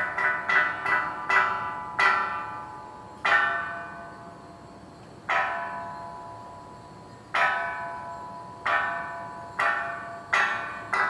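Korean temple wind bell (pungyeong) hanging from the eaves, its clapper swinging in the breeze and striking irregularly. Each strike rings and fades. A quick cluster of strikes comes at first, then strikes a second or two apart, then quicker again near the end.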